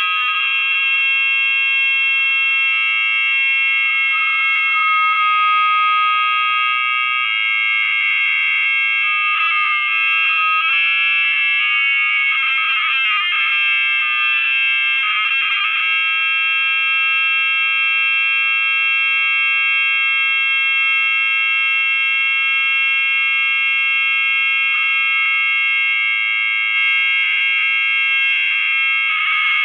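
A loud, continuous high-pitched electronic drone of several steady tones sounding together, alarm-like, wavering briefly around the middle.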